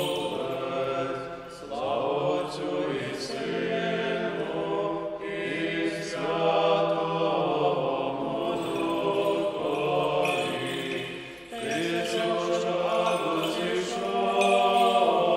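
Small group of men chanting a hymn of the Byzantine-rite panakhyda (memorial service for the dead) without instruments, in held phrases with short breaks about two seconds in and near the end.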